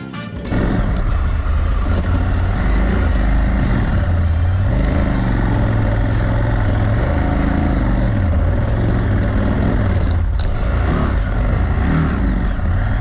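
Adventure motorcycle engine running under way, its pitch rising and falling as the throttle is opened and closed, with a steady rushing noise over it.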